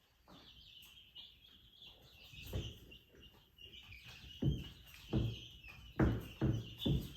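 Birds chirping steadily in the background, with about six dull thumps and knocks in the second half, the loudest sounds here.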